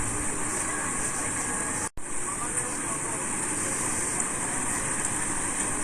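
Busy street ambience: steady traffic noise with indistinct chatter, broken by a sudden drop-out of a split second about two seconds in.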